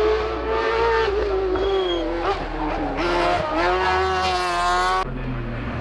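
Race car engine running at high revs through a hairpin. The revs drop about two seconds in, then climb again as it accelerates away. The note cuts off abruptly near the end.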